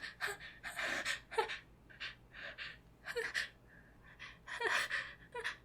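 A woman's series of short, gasping in-breaths with a faint voiced catch, the hitching build-up before a sneeze.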